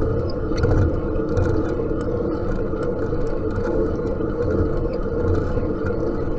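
Attic fan running steadily: a continuous low whir and hum with faint light ticks over it.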